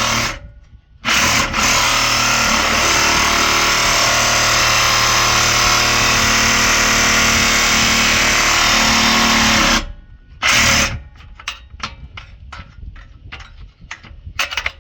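Electric power cutting tool running against the steel exhaust pipe and barely cutting, its blade meant for wood rather than steel. It runs briefly, stops, then runs steadily for about eight seconds, followed by one short burst and a string of quick trigger blips near the end.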